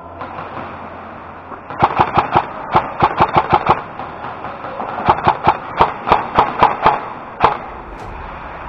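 Airsoft rifle firing two strings of rapid single shots, about a dozen each, one starting about two seconds in and the other about five seconds in.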